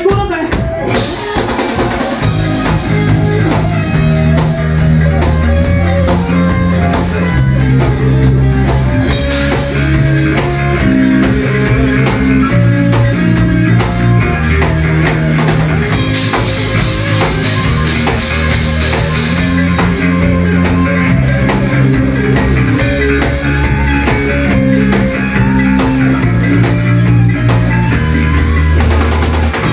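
Rock band playing live and loud: drum kit, electric bass with a moving bass line, and electric guitar.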